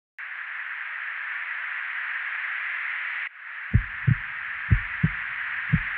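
A steady hiss that cuts off suddenly a little over three seconds in, then low thumps in pairs about once a second, a lub-dub rhythm like a heartbeat.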